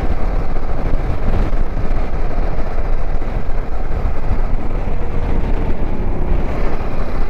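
Motorcycle riding up a ghat road: steady engine and road noise under heavy wind rumble on the riding microphone.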